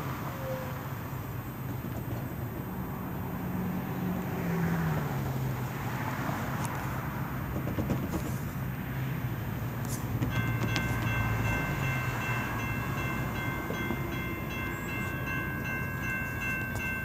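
A low engine rumble whose pitch sinks slowly, then a railroad grade-crossing bell starts ringing about ten seconds in and keeps ringing: the crossing signals have activated, warning of an approaching train.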